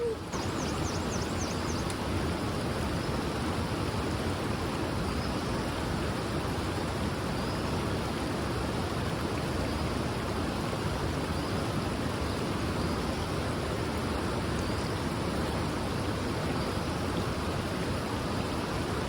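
Steady rushing wind and road noise on the microphone of a moving motorcycle, even throughout.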